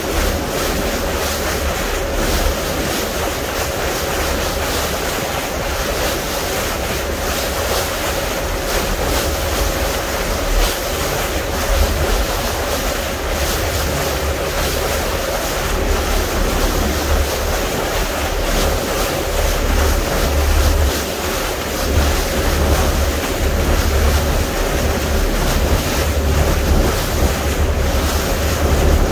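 Wind rumbling on the microphone and water rushing along the hull of a small fishing boat under way, with a faint steady engine hum underneath.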